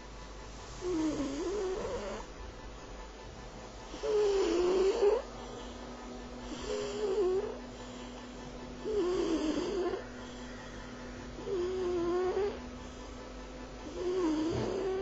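Male cat snoring in its sleep: six snores, about one every two and a half seconds, each lasting about a second with a wavering pitch.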